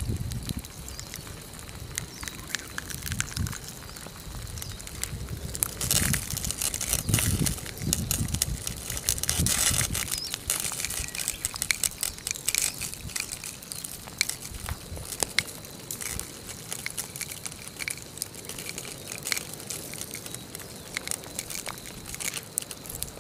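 Molten lava creeping over and crushing metal cans: continual crackling and crunching with many sharp clicks, and a louder stretch of hissing from about six to eleven seconds in as the cans burn and vent.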